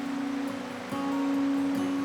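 Background music with long held notes, fading in and changing note about a second in, over a steady rushing hiss.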